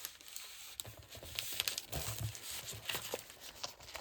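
Sheets of patterned craft paper rustling and crinkling as they are handled and put away, with a few soft knocks about two seconds in.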